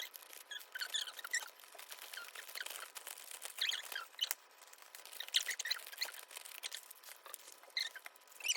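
Plastic packaging and sleeves crinkling and rustling as they are handled, with many small taps and squeaky rubs.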